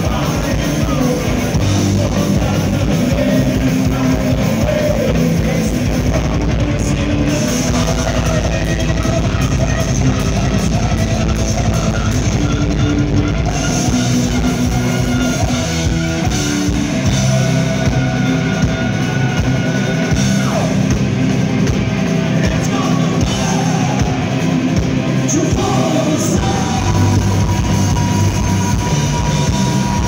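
Heavy metal band playing live, recorded from the audience: distorted electric guitars, bass and drum kit with a singer, and long held notes in the middle and near the end.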